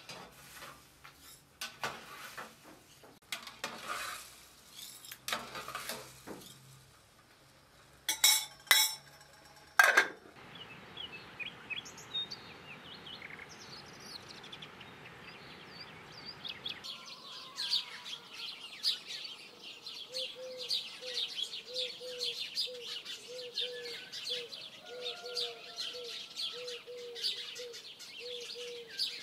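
A metal pot and lid being handled on a gas burner: light clinks, then a few loud ringing metal clanks. A steady hiss follows. Then many birds chirp, with one low call repeated about twice a second.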